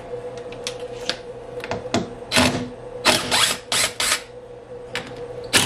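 Screws and a pine board being handled on a CNC router's table: an irregular run of clicks, taps and short rattling scrapes as the workpiece is set down and screws are fitted to fasten it, busiest in the middle, over a steady faint hum.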